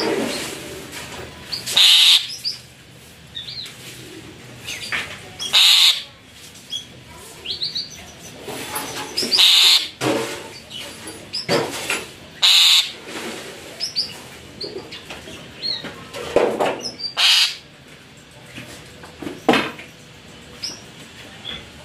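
A bird chirping close by, with loud short calls every few seconds over quieter chirps.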